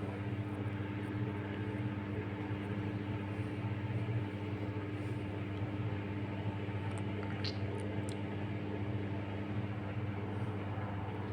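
Samsung WW90K4433YW front-loading washing machine running with a steady motor hum and drum noise, and a brief high squeak about two-thirds of the way through.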